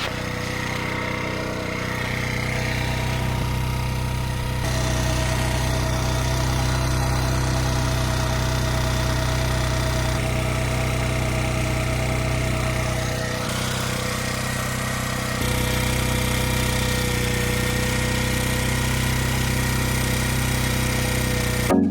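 Small four-stroke moped scooter engine running steadily at idle. The level and tone shift abruptly a few times.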